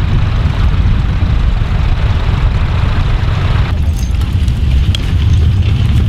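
A small vintage tractor's engine running under heavy wind rumble on the microphone. A little over halfway through the engine drops away, leaving the wind rumble with a few faint clicks.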